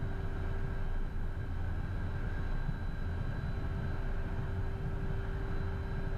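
Twin Williams FJ44 turbofan engines of a Beechcraft Premier I business jet at taxi power, heard inside the cockpit as a steady rumble with a thin high whine over it.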